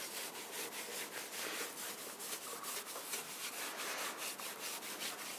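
Cotton T-shirt rag rubbed briskly back and forth over the oiled wooden top of an old sewing machine cabinet. The rag makes a fast run of soft swishing strokes, several a second, as it buffs off excess boiled linseed oil and streaks.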